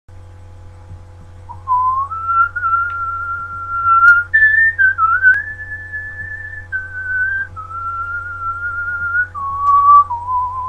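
A person whistling a slow tune in clear single notes, each held for about a second. The tune starts a couple of seconds in, climbs to its highest held note about midway, then steps back down note by note. A steady low electrical hum runs underneath.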